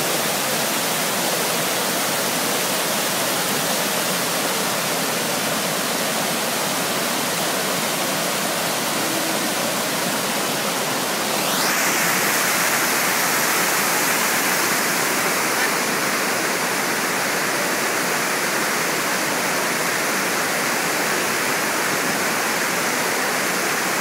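Whitewater of Plaikni Falls' creek rushing and splashing over rocks: steady, even water noise, which turns a little louder and brighter about halfway through.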